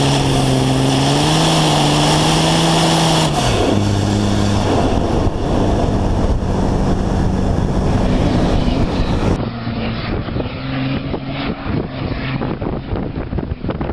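Diesel big-rig race truck engine running hard. It holds a steady high note, then drops sharply in pitch about three and a half seconds in, as when the driver lifts or shifts, and runs on at the lower note. Near the end the engine is heard from further off, duller and rougher.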